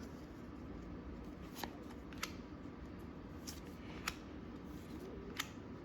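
Baseball trading cards being flipped over and handled, with a handful of faint, scattered clicks of card edges against each other and the table.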